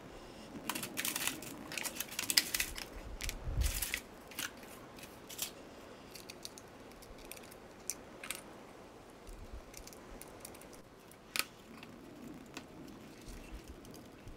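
3D-printed plastic parts clicking, knocking and scraping as they are handled and fitted together by hand. A dense run of clicks comes in the first four seconds, then a few single clicks.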